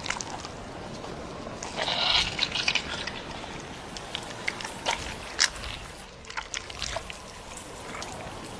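Wet, liquid sounds with scattered small clicks as a rattlesnake gives birth to a live young, the loudest stretch a wet cluster about two seconds in.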